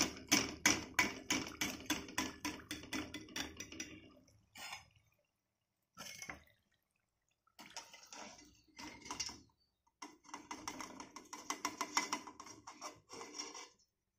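Hot oil crackling and dripping as fried murukku is lifted out of a metal pot with a slotted steel spoon, the spoon scraping against the pot. A quick run of crackles at first, then shorter spurts with silent gaps between them.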